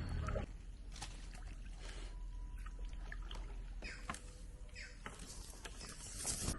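Water splashing and trickling around a small boat, with irregular clicks and splashes and a few short chirps in the middle.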